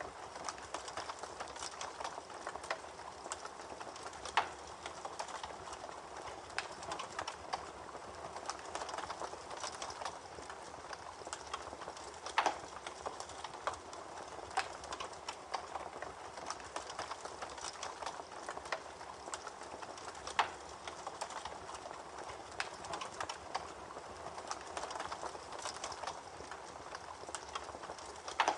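Campfire crackling with scattered sharp pops, a few louder ones standing out, over the steady rush of a babbling creek.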